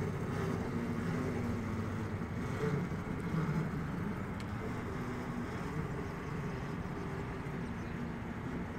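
Homemade amphibious go-kart boat's electric drive running as the wheeled hull rolls along a floating dock. It makes a steady, low running noise with a faint hum.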